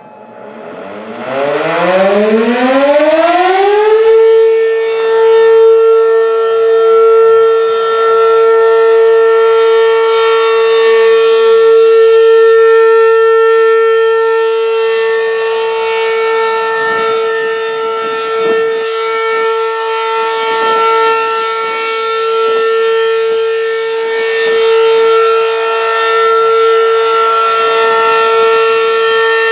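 ACA P-15 electromechanical outdoor warning siren (8-port) starting up for its steady alert signal during a test. It winds up, rising in pitch over the first four seconds or so, then holds one loud steady tone.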